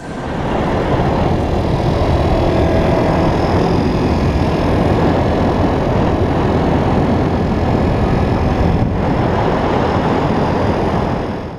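Scooter engine running and wind rushing over a helmet-mounted camera while riding along a road, heard as a steady, heavy rumble that cuts off suddenly at the end.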